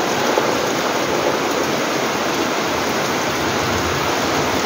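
Steady downpour of typhoon rain, an even hiss that holds at one level.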